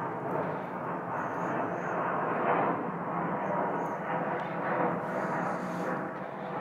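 Steady rumble of distant engine noise that swells and eases a little, with a few faint high chirps about a second in and again near the middle.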